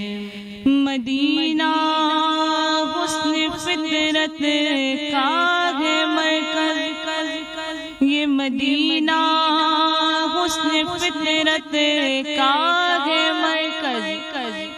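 A woman sings an Urdu naat (devotional praise of the Prophet) into a microphone. She holds long notes and decorates them with ornamented melodic turns. About a second in she moves from a lower held note up to a higher one.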